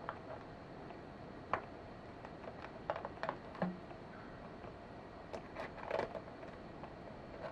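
Faint, scattered clicks and light taps of a pencil marking screw holes through a metal blind mounting bracket held against a window frame.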